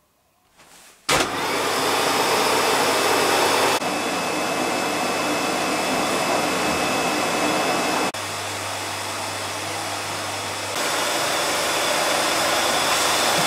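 Panasonic canister vacuum cleaner switched on about a second in and running with a steady rushing whine, its level stepping abruptly up and down a few times.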